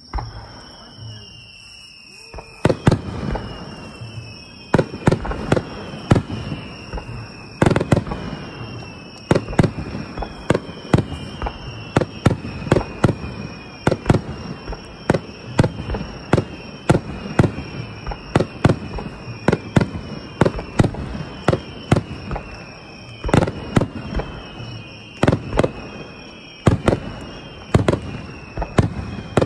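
Aerial fireworks shells going off in quick succession. After a quiet start, booms come about two and a half seconds in and then follow one another rapidly, often less than a second apart, with short falling whistles between them.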